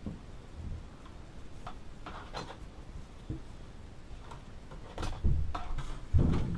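Scattered light clicks and taps of foam board parts and a hot glue gun being handled on a cutting mat, with two louder thumps about five and six seconds in.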